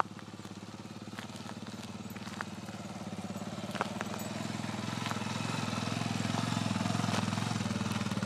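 Quad bike engine running at a steady pitch as it is ridden, growing louder as it approaches and passes close by, with a few faint clicks.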